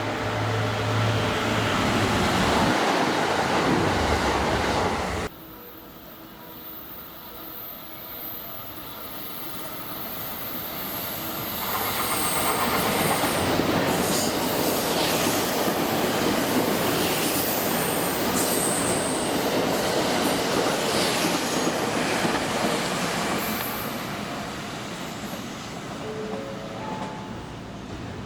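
Trains running on rails. A first train's noise, with a steady low hum, cuts off abruptly about five seconds in. A second train then builds up, runs loud for about twelve seconds with clattering wheels and brief high squeals, and fades away near the end.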